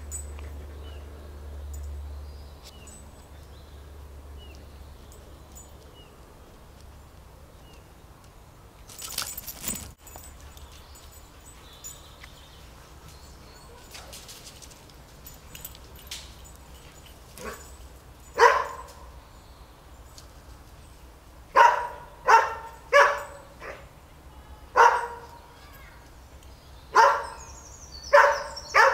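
Greyhound barking: about eight short, sharp barks in the second half, several in quick succession.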